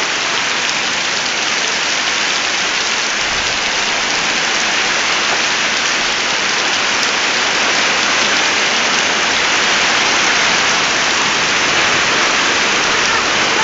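Hail and heavy rain pelting down in a loud, steady, dense hiss.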